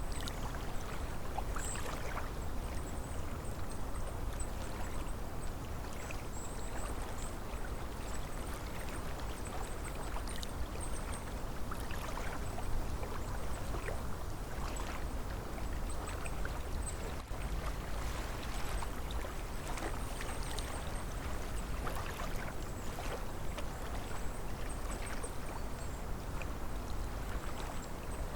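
Small cold-water waves lapping and splashing against a lake shore in an irregular stream of little splashes, over a steady low rumble of autumn wind.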